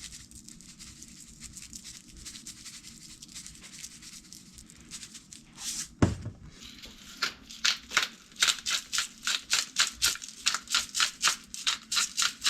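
Seasoning being shaken or ground over raw fish fillets: a sharp click about halfway through, then quick, evenly spaced rattling strokes, about four a second.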